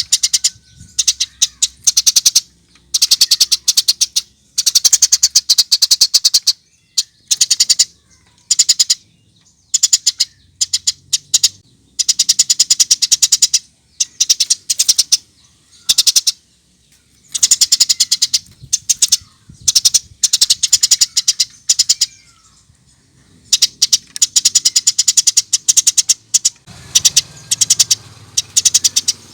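Eurasian tree sparrows chattering: rapid runs of sharp, high chirps in spells of one to two seconds, broken by short pauses.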